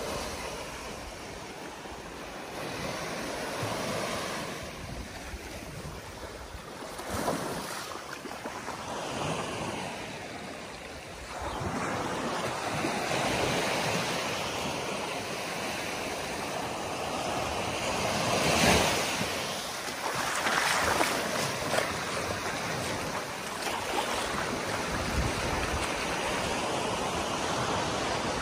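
Small waves breaking and washing up a sandy beach, swelling and easing every few seconds, with wind buffeting the microphone.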